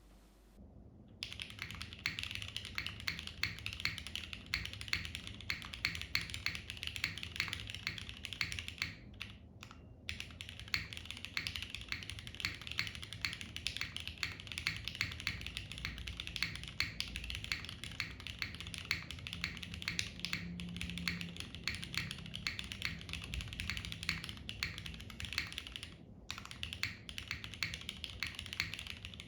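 Continuous fast typing on a plateless Geonworks F2-84 mechanical keyboard with Cherry MX2A Black linear switches and GMK Mono keycaps, picked up by a camera's built-in microphone. The typing starts about a second in and pauses briefly twice.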